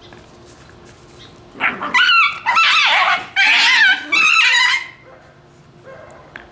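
Shiba Inu puppy screaming in play over a bone: high, wavering, fox-like shrieks in about four runs lasting some three seconds, starting about a second and a half in.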